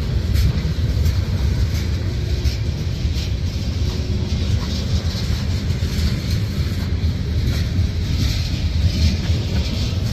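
Freight cars of a mixed freight train rolling past close by: boxcars, tank cars and covered hoppers. Their wheels make a steady low rumble on the rails, with scattered clicks and clanks.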